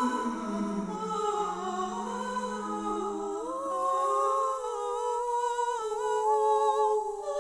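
Layered, voice-like humming from a singing-sculpture sound installation: several sustained tones held and sliding slowly between pitches, overlapping like a wordless choir.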